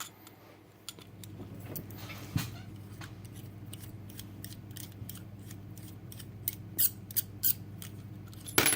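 Small metal clicks and scrapes as a Bellock cam lock is taken apart by hand, with a few sharper clicks near the end. A steady low hum runs underneath.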